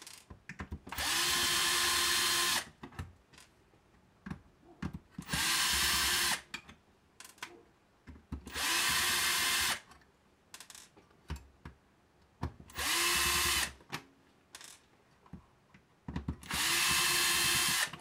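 Cordless electric screwdriver running in five short bursts of a second or so each. Each burst spins up and then holds steady as it backs out the screws holding a circuit board. Small clicks of handling come between the bursts.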